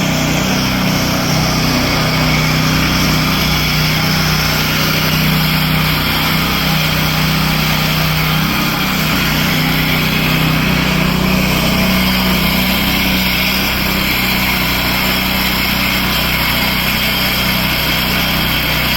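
Husqvarna Soff-Cut 150 early-entry concrete saw running steadily under load, its small engine driving the blade through a control joint in concrete that has already set fairly hard.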